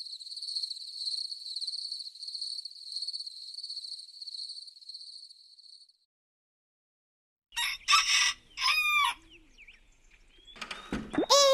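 Crickets trilling steadily for about six seconds, then, after a brief silence, a rooster crowing, with another call near the end: the cartoon's sign that night has turned to morning.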